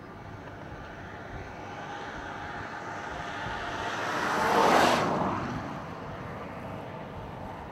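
A vehicle passing by: a rush of tyre and engine noise that builds for a few seconds, peaks about four and a half seconds in, and fades quickly.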